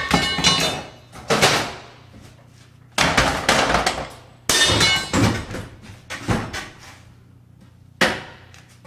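Bathroom vanity cabinet being knocked apart: about seven hard bangs, each with a rattle and crack of breaking wood, spaced a second or two apart.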